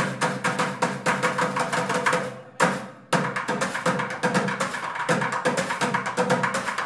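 Live bucket drumming: sticks beating a fast, even beat on plastic buckets, metal trash cans and cymbals. The beat drops out for about half a second a little before the middle, with one lone hit, then comes back in.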